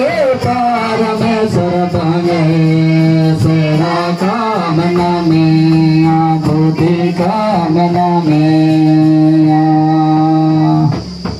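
A choir of men singing a Mundari hymn in long held notes, with barrel drums beaten along.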